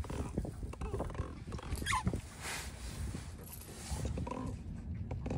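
Handling noise as a catfish is unhooked with plastic fish-gripping pliers: scattered clicks and rustles, with a short rising squeak about two seconds in.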